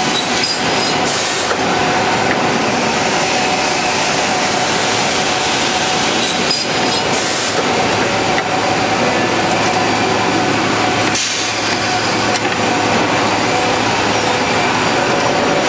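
Selco panel saw running: a steady loud machine noise with a faint hum, and a few short louder hisses now and then.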